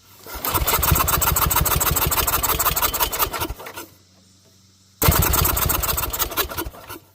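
Small lawnmower engine running on a failing carburetor that only just keeps it going: it runs with a fast, rough pulse for about three and a half seconds and dies away, then runs again for about two seconds near the end and cuts off.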